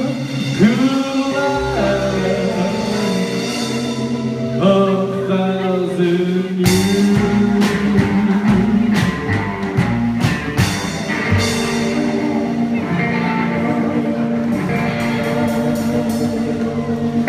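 Live rockabilly band: hollow-body electric guitar, upright bass, drum kit and a singing voice. Held guitar and vocal notes ring over the bass for the first six seconds or so, then the drums and cymbals come in hard and the full band plays on.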